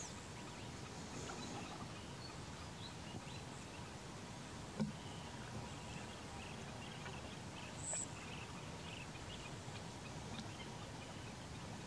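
Steady outdoor background noise with faint, scattered bird chirps. A short knock sounds about five seconds in, and a brief high-pitched chirp about eight seconds in.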